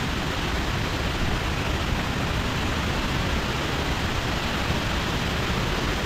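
Steady rush of a high waterfall heard close up: a dense, even hiss with a deep rumble under it.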